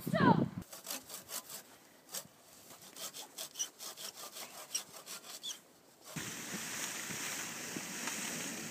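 Hand saw cutting through the trunk of a small spruce, a run of quick rasping strokes. About six seconds in it gives way to a steady rushing noise.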